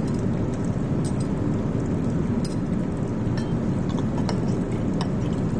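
Steady low background rumble, with a few faint, light clinks as a glass slide rack on a metal hook is lowered into a glass Coplin jar of OG-6 Pap stain.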